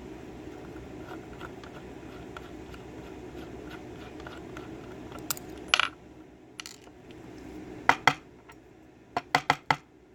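Small metal parts of a 5-pin tumbler lock, its pins and springs, coming out and dropping onto a hard surface. A few light clicks about halfway in, then a quick run of small metallic clinks near the end.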